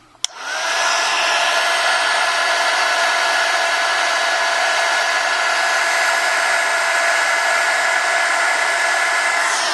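Hot-air blower switched on, spinning up quickly about a third of a second in, then blowing steadily with a steady motor whine over the rush of air. It is heating the phone's parts to soften the adhesive.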